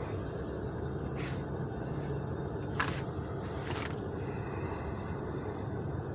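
Steady low rumble inside a parked car, with three short hisses about one, three and four seconds in.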